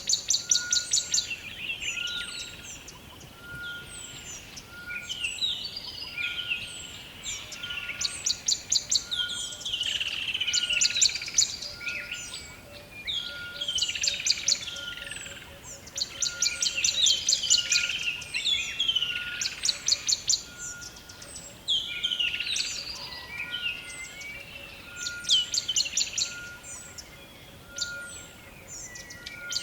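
Rainforest bird chorus: fast clicking trills repeat every few seconds among many descending whistled calls, over a short high note that beeps about once a second.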